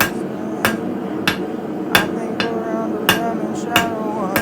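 Hand hammer striking hot steel in forging, a sharp blow about every two-thirds of a second, over a steady background rush.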